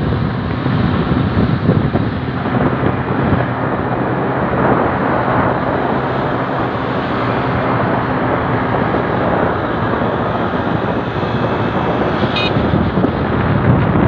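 Wind buffeting the microphone of a moving motorcycle, over the steady running of small motorcycle engines riding alongside.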